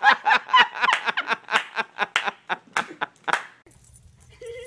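A person laughing hard in rapid, even bursts, about five a second, that cut off abruptly about three and a half seconds in.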